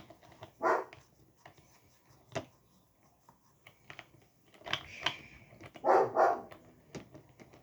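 A dog barking in short bursts: once about a second in, then a cluster of barks past the middle. Light clicks and knocks fall in between.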